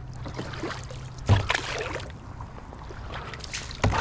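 Kayak paddling: the paddle dipping and pulling through the water with a light trickle and slosh, and two sharp knocks, one about a second in and one near the end.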